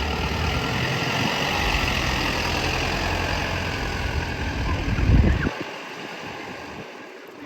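Fire truck engine running close by, building to its loudest about five seconds in and then falling away sharply.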